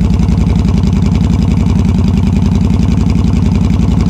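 Yamaha V Star 1300 (XVS1300) V-twin idling steadily through loud Hard Krome drag pipes: an even, low, rapid exhaust beat.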